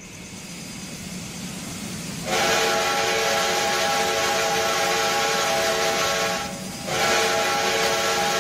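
Steam locomotive whistle blowing several steady tones at once over a heavy hiss of steam, after a low hiss has built up for about two seconds. The first blast lasts about four seconds, breaks off briefly, and a second blast starts near the end.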